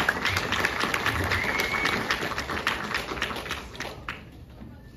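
Audience applauding, a dense patter of many hand claps that dies away about four seconds in.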